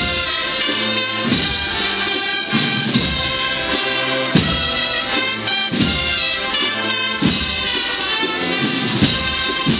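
Brass band music with drums, the brass holding stacked chords over a regular beat.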